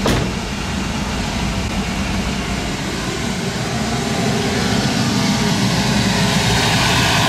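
Tesla Model 3's air conditioning running at its highest setting, a steady rush of air from the climate system, run to clear the foam evaporator cleaner. A short knock at the start; the rush grows louder and a steady whine comes in over the last couple of seconds.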